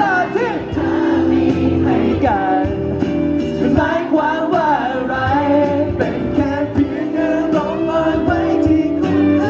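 Thai pop song performed live on stage: singing into handheld microphones over a backing track, amplified through a PA system.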